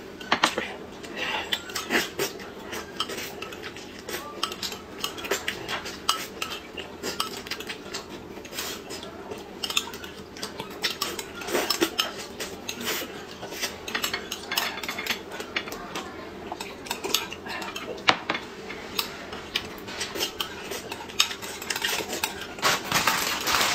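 Spoon clinking and scraping against a glass bowl while eating from it, in many light, irregular clinks.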